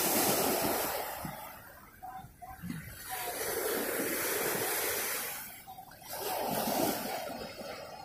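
Ocean surf breaking and washing up the beach, swelling and fading in three surges: one at the start, a longer one from about three seconds in, and another at about six seconds.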